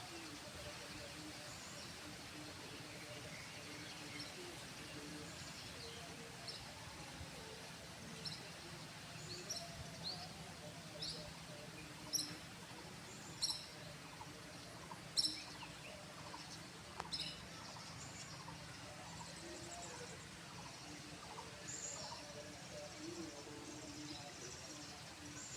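Birds chirping: scattered short, high chirps over a steady background hiss, the loudest a series of single sharp chirps about a second and a half apart near the middle.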